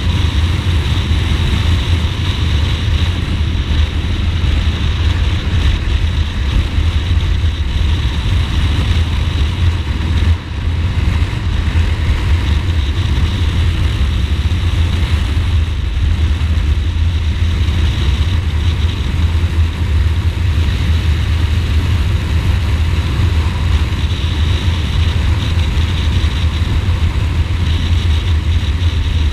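Ducati Multistrada motorcycle riding at a steady pace: a constant low rumble of engine and road noise. It dips briefly about ten seconds in.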